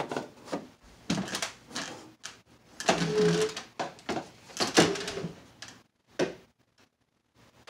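Sheet-metal cover of a Digitech 2120 rack unit being worked loose and slid along its chassis by hand: a run of scrapes and knocks as the stuck cover shifts.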